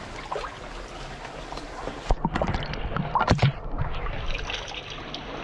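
Creek water running steadily, with a cluster of sharp splashes and knocks between about two and three and a half seconds in.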